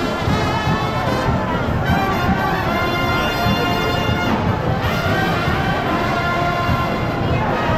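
Music with brass instruments playing a melody.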